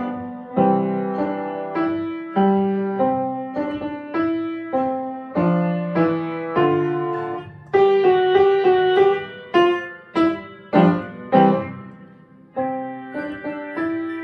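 Piano played with both hands in the middle register: separate struck notes that each die away, with a quicker run of notes about eight seconds in and a brief gap about twelve seconds in.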